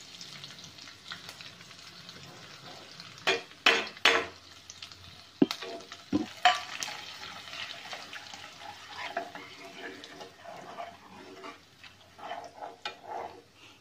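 Spice powders and paste sizzling in hot oil in a nonstick kadhai while a steel ladle stirs them in. Several sharp metal clinks and scrapes against the pan break in, the loudest a few seconds in.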